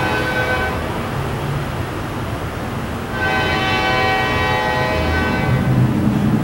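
Locomotive air horn on an EMD GP38-3 sounding for the grade crossing: a blast that ends less than a second in, then another from about three seconds in lasting some two and a half seconds, over the low rumble of the approaching train. The crossing signal's electronic bell rings underneath.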